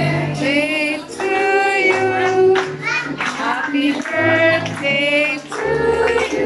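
Music with a woman singing over a bass line whose low notes change about once a second.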